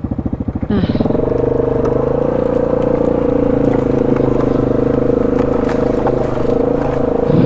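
ATV engine idling with an even pulsing beat, then picking up revs about a second in and running steadily.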